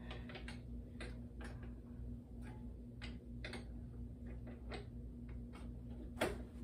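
Irregular light clicks and knocks of plastic parts being handled as a hand is fitted onto an animatronic clown prop's arm, with a louder knock near the end, over a steady low hum.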